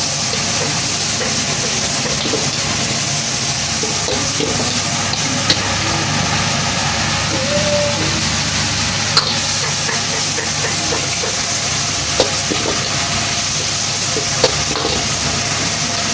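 Vegetables and meat sizzling in a hot wok while a metal ladle stirs and turns them: a steady frying hiss with four sharp clinks of the ladle against the wok.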